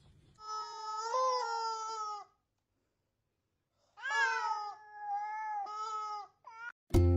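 Squeezable yellow rubber chicken toy squawking twice. Each squawk is a long, steady, nasal tone lasting about two seconds, and a short squeak follows near the end.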